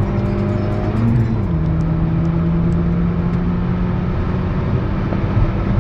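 Renault Mégane R26's 2.0-litre turbocharged four-cylinder engine running steadily under way, its tone stepping down in pitch about a second in and then holding level.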